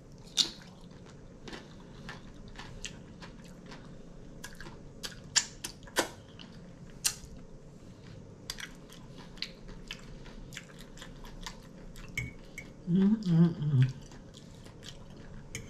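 Close-up chewing of a mouthful of taco salad with tortilla chips, with scattered sharp crunches and wet mouth clicks. A brief voiced murmur comes about thirteen seconds in.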